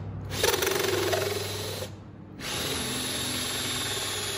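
Cordless drill driving a hole saw into a clamped stack of plywood sheets. It runs, stops for about half a second around two seconds in, then runs again.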